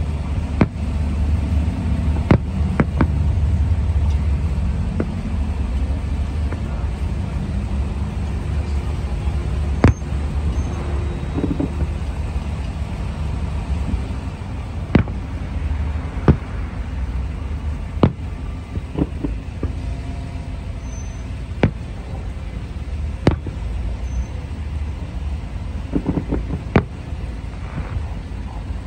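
Aerial fireworks shells bursting, about a dozen sharp bangs spaced irregularly a second to several seconds apart, over a steady low rumble.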